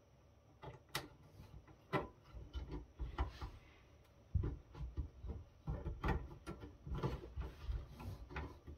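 Irregular clicks, scrapes and light knocks of a pry tool working at a small finned heat sink on a network switch's circuit board, with a few heavier low thumps about four and a half seconds in. The heat sink won't come loose.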